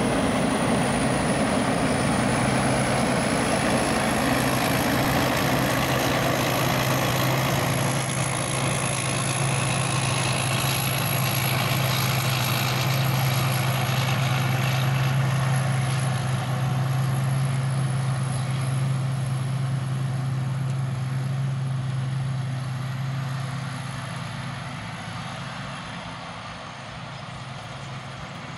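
Diesel engine of a tracked rice combine harvester running steadily under load as it harvests, with a thin high whine over the machine noise. The sound fades over the last few seconds as the combine moves off across the field.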